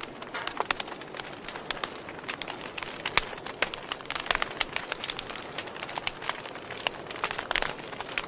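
Wood fire in a fireplace crackling, with irregular sharp snaps and pops several times a second over a steady hiss of burning. The loudest pops come about three seconds in and again near the end.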